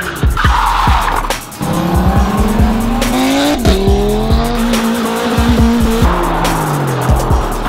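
A car engine revving hard: its pitch climbs for about two seconds, drops sharply at a gear change, holds steady, then falls away near the end. A music track with a beat runs underneath.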